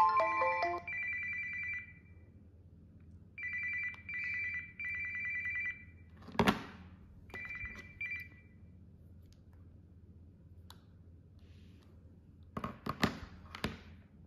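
Phone ringtone imitating a classic telephone bell: a fast trilling two-tone ring in short bursts that stops about eight and a half seconds in. A sharp knock comes partway through and a quick cluster of clicks near the end.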